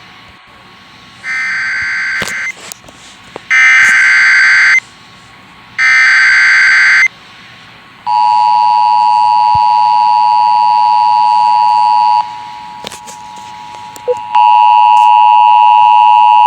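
Emergency Alert System header: three short bursts of screeching data tones, about a second apart, followed by the steady two-tone EAS attention signal. The attention signal sounds for about four seconds, drops away briefly and then starts again near the end.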